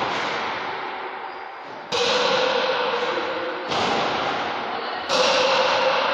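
Rubber pelota struck with paddles and rebounding off the walls during a paleta goma argentina rally in a trinquete court: three sharp cracks about a second and a half to two seconds apart, each ringing on in a long echo.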